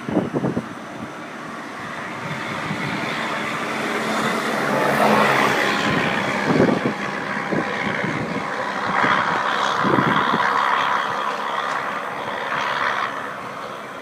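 Road traffic passing, the noise swelling about five seconds in and again about ten seconds in, with a few short low thumps.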